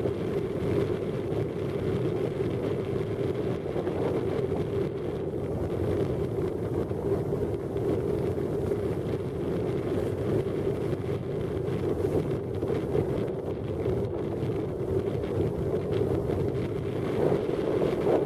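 Outboard motor of a small motorboat running steadily under way, with wind buffeting the microphone.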